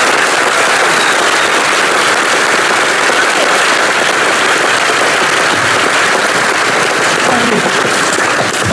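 Audience applauding steadily at the close of a talk; the clapping stops abruptly at the end.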